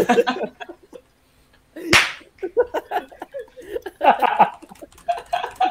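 One sharp smack about two seconds in, right after a brief near-silent moment, followed by people laughing.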